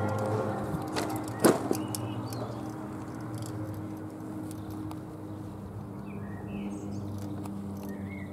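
The hum of a large church tower bell fading away after a clock stroke, with no new stroke. There are two sharp knocks about a second and a second and a half in, and birds chirp a few times in the second half.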